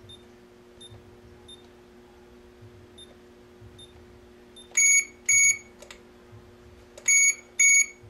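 Soft key beeps, about six of them, as a code is tapped into a GSM alarm system's wireless keypad. Then the alarm system gives two loud, high double beeps, one about five seconds in and one near the end. A faint steady hum runs underneath.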